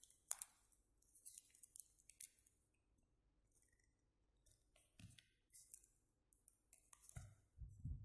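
Faint crackling and rustling of paper and clear adhesive tape as fingers handle the paper and press the tape down, in many short, uneven bursts. There are a few soft thumps about five seconds in and again near the end.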